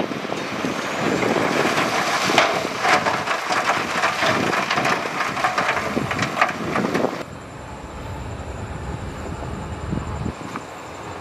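Heavy earthmoving machinery working rock: a diesel engine running under a dense clatter of many sharp knocks for about seven seconds, then a sudden drop to a quieter, steady engine sound.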